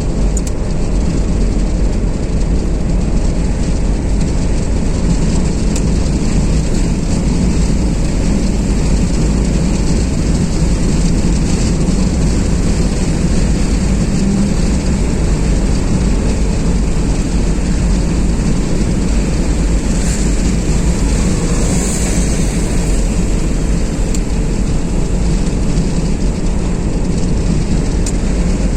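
Steady road noise of a car driving on a motorway: even tyre and wind noise with a heavy low rumble. A brief rise in high hiss comes about twenty to twenty-three seconds in.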